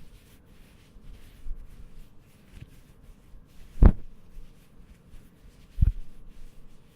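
Microfibre cloth being rubbed and handled, giving faint, soft scratchy rubbing. Two dull thumps stand out, about four seconds in and again near six seconds.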